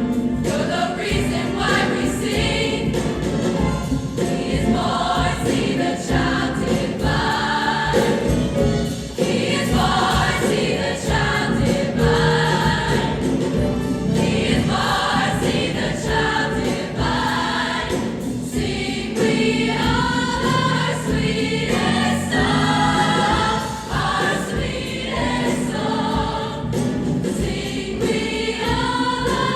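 A choir singing with accompaniment, a seasonal song in performance.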